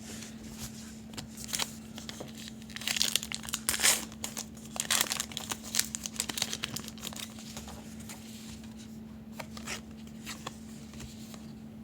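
A trading-card pack wrapper being torn open and crinkled, with cards rustling and clicking as they are handled, in bursts that are busiest in the first half. A steady low hum runs underneath.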